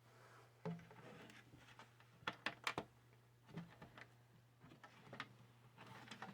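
Quiet handling: a few light clicks and knocks, including three quick sharp clicks about two and a half seconds in, over a steady low hum.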